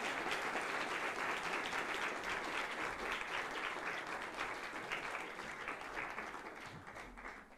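Audience applauding in a lecture hall: many hands clapping together, slowly dying away near the end.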